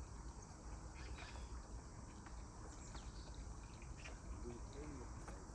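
Quiet pondside ambience: a steady low rumble with faint scattered ticks, and a few faint wavering animal calls about four and a half seconds in.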